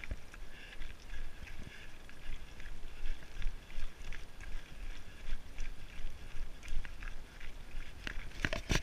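Wind buffeting the microphone of a body-worn camera, with scattered crunching footsteps on a rocky scree path. A louder rush of noise comes in near the end.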